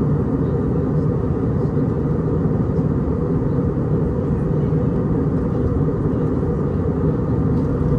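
Steady low drone of engines and airflow inside the cabin of an Airbus A319-100 airliner on approach, with no changes or distinct events.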